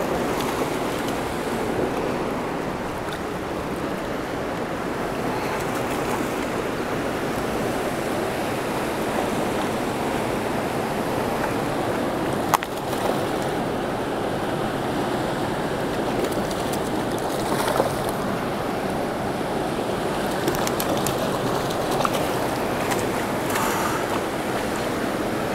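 Steady rush of a fast river running over rocks, even throughout, with a single sharp click about halfway through.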